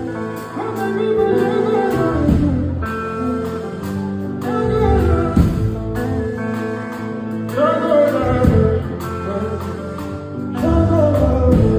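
Band music with a sung vocal line over guitar, bass and percussion.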